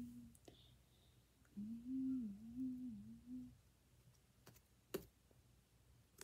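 A girl humming a short wavering tune with her mouth closed, then, near the end, a few sharp little clicks from sticky slime being pressed and pulled with the fingers.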